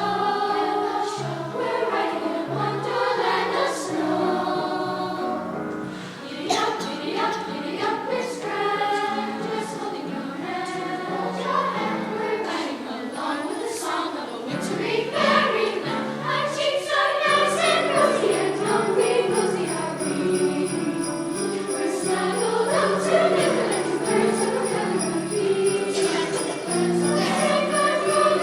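Youth choir singing a holiday song with jingle bells shaking along; the bells come in about two-thirds of the way through.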